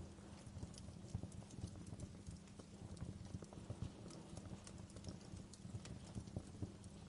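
Fireplace fire crackling, with irregular small pops and snaps over a low steady rumble of flames.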